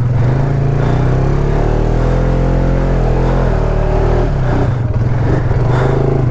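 ATV engine running, its pitch rising and falling back once in the middle.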